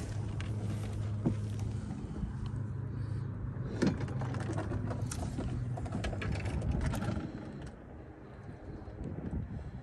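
A low, steady motor hum that fades out about seven seconds in, with scattered clicks and rustling over it.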